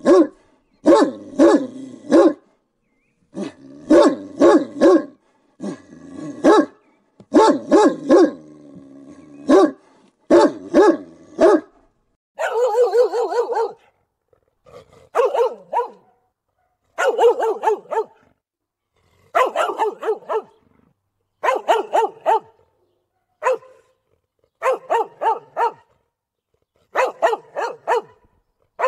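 Dog barking loudly and aggressively in quick volleys of three or four barks, with clean silent gaps between them. One longer, drawn-out bark comes near the middle, and the barks after it are higher-pitched than the deeper ones at the start.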